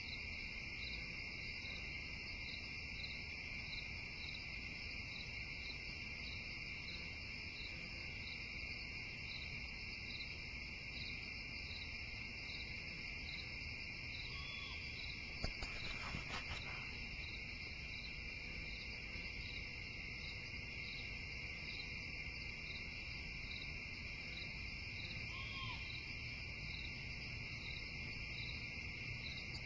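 Insect chorus: a steady high trill with a regular chirp about twice a second. A short, hooked call repeats every ten seconds or so, and a brief patch of clicks comes about halfway through.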